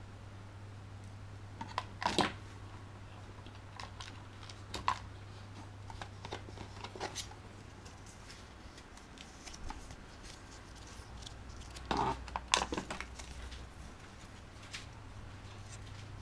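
Packaging and a small plastic device being handled: scattered rustles, crinkles and light clicks, with the busiest handling about two seconds in and again around twelve to thirteen seconds, over a steady low hum.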